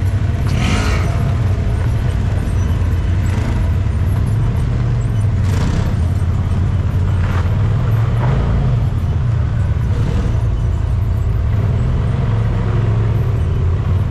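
Side-by-side UTV engines running at parade crawl speed: a steady low drone, with one engine briefly revving up and back down a little past the middle and a few short surges of noise.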